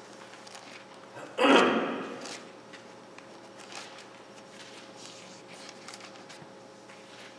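Quiet room tone with a faint steady hum, broken about a second and a half in by one short, loud rush of noise that fades within about half a second.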